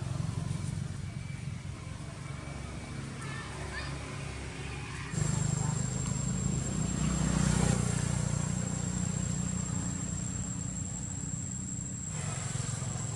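Outdoor roadside ambience. A vehicle passes on the road, rising and fading about seven to eight seconds in, over a steady high-pitched insect drone that starts abruptly about five seconds in.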